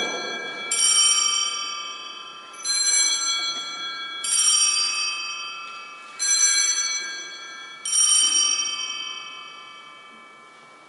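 Altar bells rung in repeated peals about every two seconds. Each peal starts sharply with several bright tones and rings out. They mark the elevation of the consecrated host at Mass.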